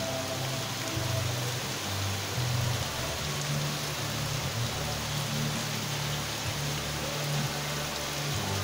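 Heavy storm rain pouring down steadily onto the ground and roofs as a dense, even hiss. Underneath runs a low steady hum that shifts in pitch every second or two.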